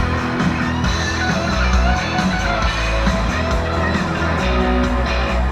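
Rock-style music with guitar, playing continuously.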